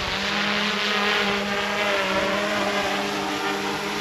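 A large engine running steadily close by, giving a continuous drone with a strong low hum.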